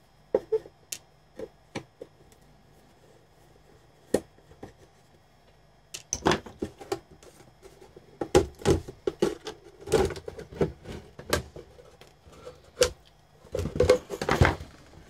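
Clicks and knocks of a screwdriver and hands working on a small black bakelite instrument case as it is taken apart. Sparse single clicks at first, then a busier, louder clatter from about six seconds in as the case is handled and the chassis is slid out.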